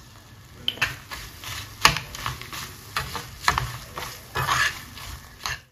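A steel spoon stirring a frying coconut and spice mixture in a pan: scrapes and clinks against the pan begin about a second in and repeat irregularly, the sharpest clink near two seconds, over a low sizzle.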